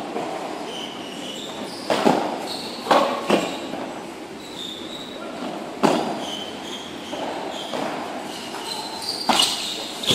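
Padel ball knocks: the ball bouncing on the court and being struck by rackets. There are several sharp, echoing knocks a second or more apart, and two quick ones near the end.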